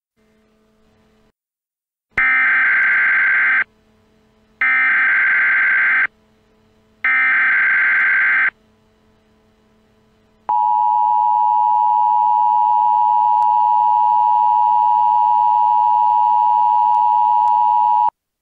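Emergency Alert System header and attention signal. Three loud bursts of SAME digital data warble, each about a second and a half long with a second's gap between them, are followed two seconds later by the EAS two-tone attention signal, a steady dual tone held for about seven and a half seconds. The tones mark the start of a new emergency alert.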